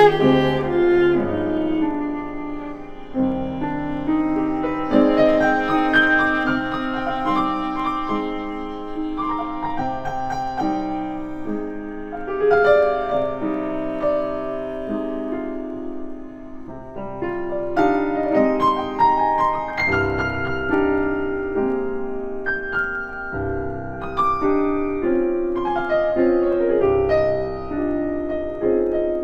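A classical prelude for piano and viola, with the piano to the fore and the viola's held notes beneath it.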